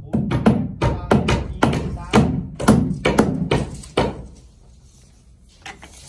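Hammer driving nails into wooden beam formwork: a quick run of sharp knocks, about three or four a second, that stops about four seconds in.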